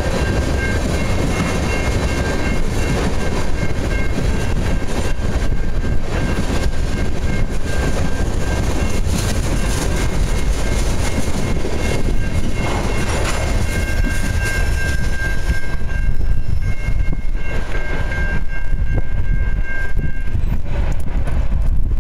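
Freight train of ethanol tank cars rolling past: a steady rumble and clatter of steel wheels on the rails. A faint high-pitched squeal comes and goes and stops near the end.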